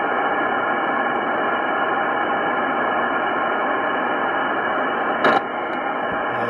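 Steady hiss from an Icom IC-9700 receiver tuned in upper sideband to the RS-44 satellite's downlink, with no signal on the frequency. A short click comes about five seconds in.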